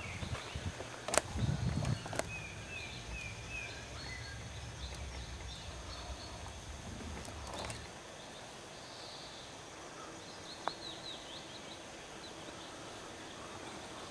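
Outdoor ambience with small songbirds singing: a short run of chirps a few seconds in and a quick trill of high notes later on. A couple of sharp knocks and some low rumbling come in the first two seconds.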